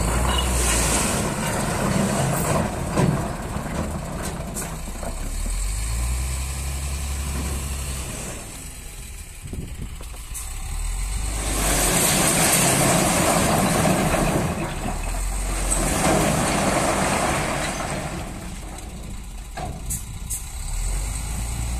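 Foton Auman dump truck's diesel engine running steadily at idle with the bed raised, with two louder stretches of rushing, hissing noise a little past halfway.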